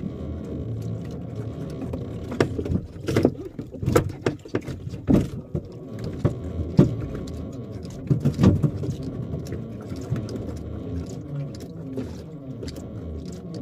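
Fishing handline hauled in hand over hand on a small boat, with a run of irregular sharp knocks and thumps from about two seconds in to around nine seconds, over a steady low hum from the boat's engine.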